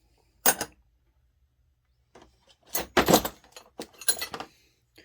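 Metal hand tools, wrenches and sockets, clinking and clattering as they are handled and set down. There is one sharp clink about half a second in, then a quick run of clanks from about three to four and a half seconds.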